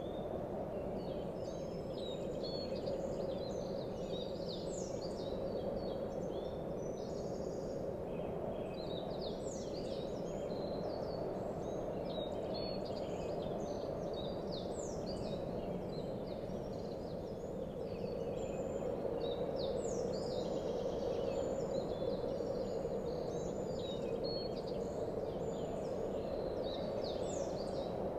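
Small songbirds chirping in many short, quick falling calls over a steady background noise: an outdoor nature ambience.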